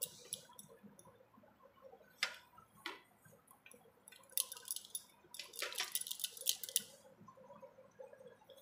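A stainless-steel grater-slicer knocking and scraping against a steel plate as it is handled and turned over, with a quick run of light metallic clicks about halfway through.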